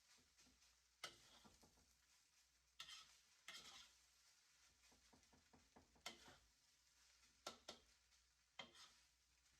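Faint, irregular scrapes and clicks of a utensil stirring food in a pan, about seven strokes spread unevenly.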